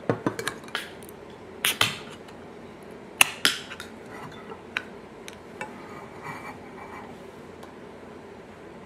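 Gold Pak grape juice can being opened by its pull tab: a series of sharp metallic clicks and taps, the loudest about two seconds and three and a half seconds in.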